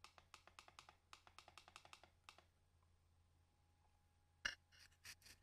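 Computer mouse clicking: a quick run of about fifteen light clicks over two and a half seconds, then one louder click and a few more near the end.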